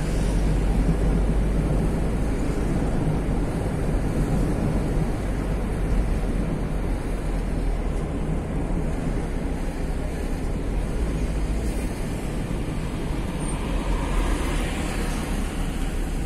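A car driving at steady speed, heard from inside the cabin: a continuous low rumble of road and engine noise.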